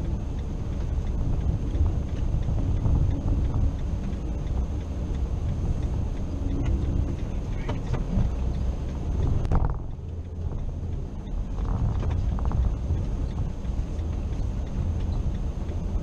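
A car pushing slowly through deep snow, heard from inside the cabin as a steady low rumble of engine and tyres with occasional knocks and crunches. The car is struggling not to get stuck.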